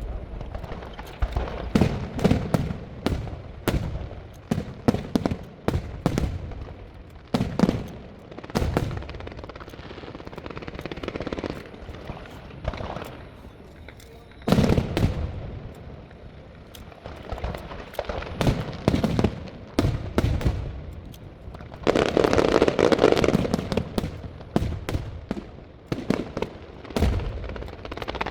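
Large fireworks display: a barrage of sharp bangs in quick clusters, many a second, with a denser stretch of crackling about three quarters of the way through.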